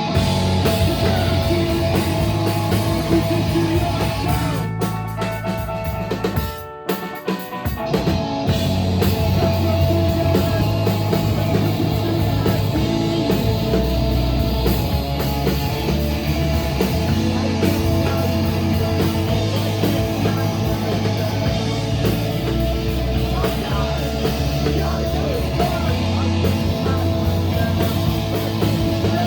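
A live rock band playing, with drum kit and guitar. Around six seconds in the music briefly drops away, then the full band comes back in.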